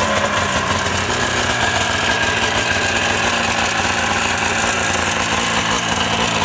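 Rotax 377cc twin-cylinder two-stroke snowmobile engine, just started, settling into a steady idle.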